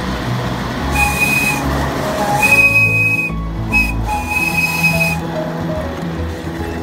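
Steam whistle on a live-steam Little Engines Mogul locomotive sounding four blasts, long, long, short, long: the grade-crossing signal.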